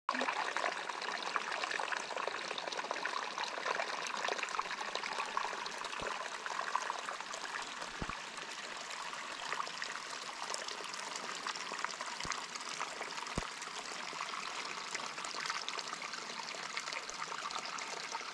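Water from a mountain spring trickling and running through brush, a steady splashing hiss, with a few soft low thumps.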